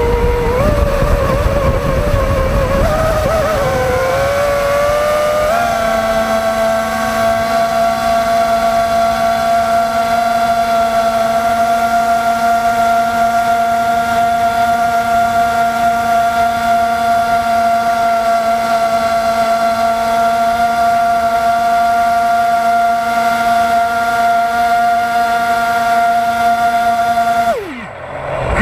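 FPV drone's brushless motors whining, the pitch wandering with the throttle at first, then holding one steady tone for a long stretch. Near the end the pitch drops sharply and the sound briefly cuts out as the throttle is chopped, then the whine picks up again.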